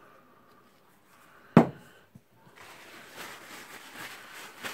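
A tin of grease set down on a wooden workbench with one sharp knock, then a cloth rag rubbing and wiping grease off a rotary hammer's gear housing, a rough rustling that grows louder near the end.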